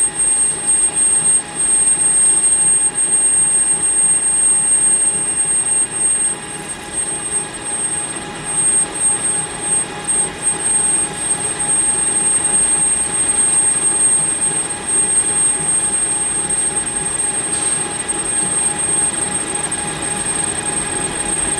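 Metal lathe running through a boring cut: a steady machine whine with a fixed high tone, under a cutting noise that rises and falls in loudness.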